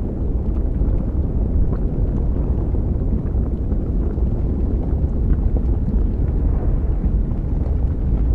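Sci-fi lava-planet ambience: a steady deep volcanic rumble with a few faint scattered crackles.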